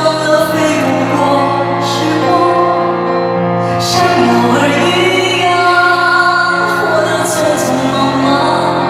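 Live concert performance of a song: a high male voice sings long held, gliding notes over instrumental accompaniment.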